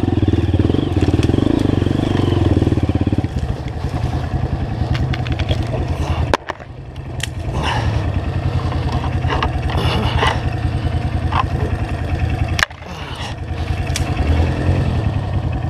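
Dirt bike engine running at low revs, pulsing steadily while the bike creeps down through dense brush, its level dropping sharply twice, about six and twelve and a half seconds in. Branches scrape and snap against the bike now and then.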